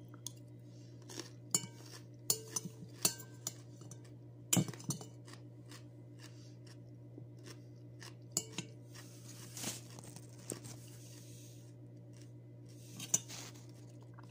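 Utensil clicking and scraping against a glass salad bowl, in scattered single clinks and short clusters, over a steady low hum.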